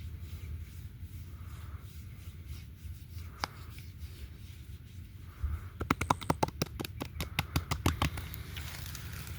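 Hands rubbing over oiled skin during a massage, with one sharp click, then a quick run of about twenty sharp slaps about two seconds long, roughly eight a second.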